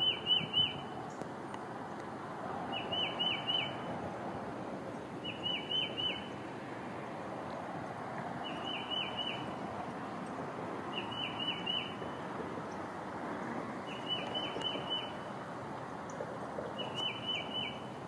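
A small songbird repeating a short phrase of four or five quick notes, seven times, about every two and a half to three seconds, over steady background noise.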